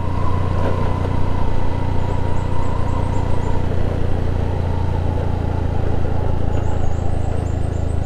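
Honda Scoopy CVT scooter on the move, its small engine humming steadily under wind and road noise.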